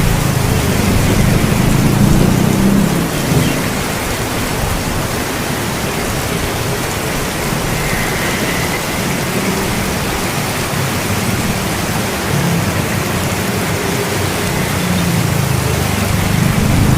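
Heavy rain falling steadily, with low thunder rumbling. The rumble swells in the first few seconds and again near the end.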